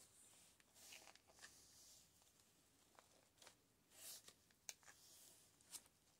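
Near silence with faint rustling and a few small clicks of ribbon and tulle being handled and pressed into hot glue.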